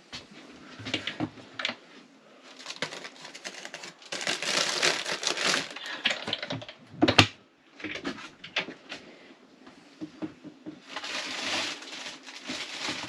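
Rummaging through kitchen stores: bursts of rustling, like plastic bags being pushed about, among quick light clicks and clatters, with one sharp knock about seven seconds in.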